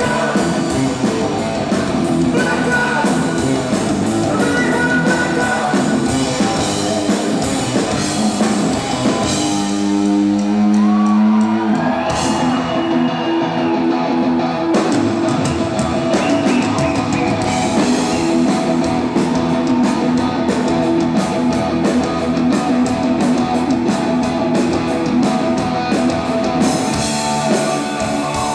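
Live hard rock band playing at full volume: distorted electric guitar, electric bass, drum kit and rock vocals. About ten seconds in, one long note is held for a second or two before the full band drives on.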